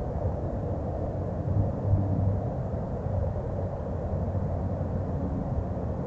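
Steady low rumbling background noise, with no distinct animal calls or footsteps standing out.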